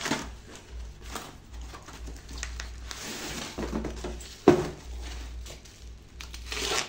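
Cardboard box and plastic wrapping being handled: scattered rustling, scraping and light knocks, with one sharp knock about halfway. Near the end a longer rustle as the black plastic bag around the amplifier is cut open with a box cutter.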